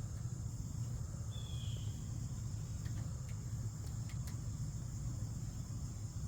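Steady high-pitched chirring of an insect chorus over a low steady hum, with a brief faint chirp about a second and a half in and a few faint clicks a little later.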